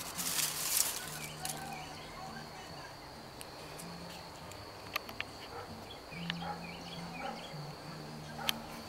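Outdoor garden ambience: a steady high insect trill with scattered faint bird chirps. There is a brief rustle in the first second and a few sharp ticks later on.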